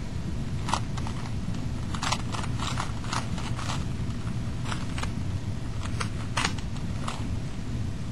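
Plastic Rubik's cube layers being twisted by hand, giving short clicks and clacks that come irregularly, a few at a time in quick runs, over a steady low rumble.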